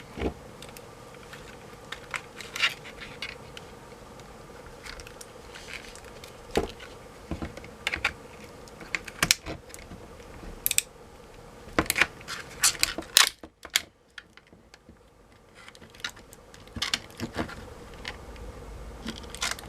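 Plastic housing of a notebook battery pack being pried and broken away from its 18650 cells: irregular clicks, creaks and small snaps of plastic, coming thickest about two-thirds of the way through.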